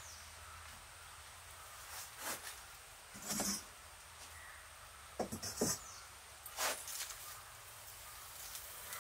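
Cookware being handled on a wood-fired clay hearth: a few separate knocks, the loudest a pair of sharp clanks about five seconds in as an iron kadai is set on the fire, over a faint steady background.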